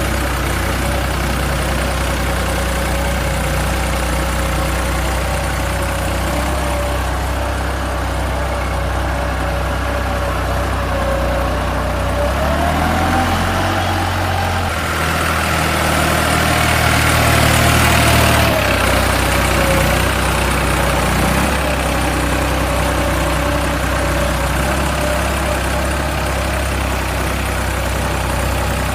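Machine engine running steadily; partway through, a whine rises in pitch, holds, then falls back.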